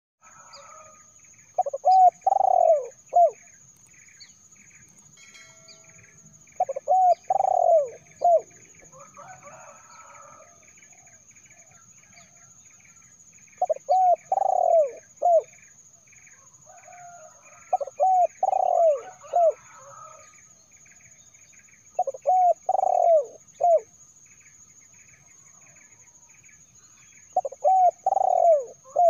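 Spotted dove (terkukur) cooing: six phrases of three or four coos each, repeated every four to six seconds. A steady high hiss and faint regular ticking run behind it.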